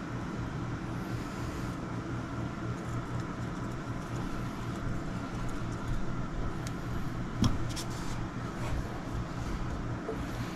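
Steady machine hum, with a few light clicks of handling and one sharp knock about seven and a half seconds in.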